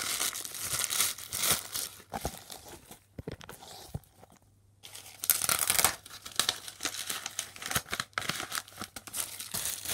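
Crumpled plastic bag crinkling and rustling in irregular bursts as bits of it are handled and pushed into a taped paper pouch. The rustling stops briefly about four seconds in, then resumes.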